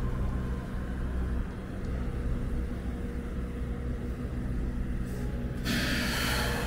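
Street traffic: a heavy vehicle's engine running with a low, steady rumble. Near the end comes a sudden loud hiss that lasts about a second.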